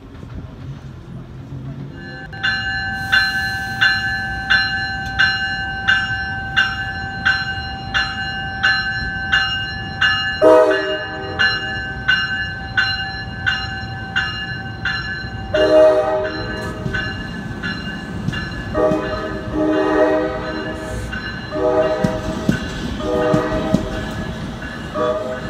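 An NJ Transit Multilevel cab car's bell ringing steadily, about one and a half strokes a second, from about two seconds in. About ten seconds in its horn sounds, first one long blast and then a string of shorter blasts as the train runs into the station across the grade crossing, with the rumble of the train under it.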